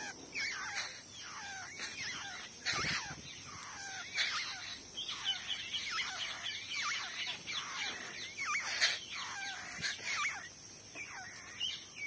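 Nestlings in the nest begging for food: a dense run of short, high chirps that bend up and down in pitch, many overlapping, as the chicks gape.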